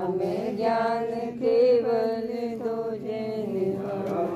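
Jain devotional hymn in praise of Jinvani being sung: a voice drawing out long melodic notes over a steady drone.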